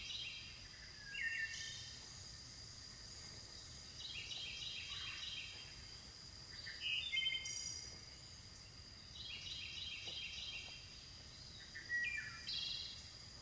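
Birds singing: a short chirping phrase repeated about every five seconds, with other chirps in between, over a steady high insect buzz.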